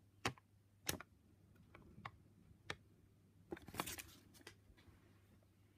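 Folded paper insert sheet being handled and set aside: a few faint separate clicks and taps, with a short rustle about three and a half seconds in.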